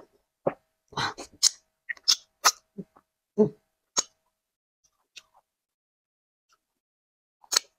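Close-miked eating sounds: wet smacks and mouth noises as soft potato fufu with vegetable soup is eaten by hand. There is a quick run of smacks in the first few seconds, then a few faint ones, and one more near the end.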